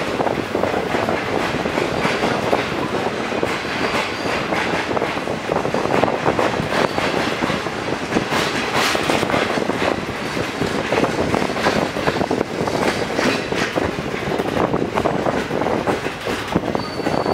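Passenger train coach wheels rolling over the track as the train pulls out on departure, heard from an open coach window. A steady run of clicking and clacking comes from the wheels crossing rail joints and points.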